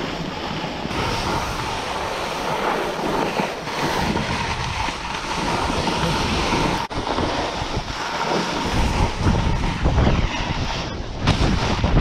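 Snowboard sliding and scraping over packed snow on a downhill run, with wind rushing over the microphone; the wind rumble gets heavier about two-thirds of the way through.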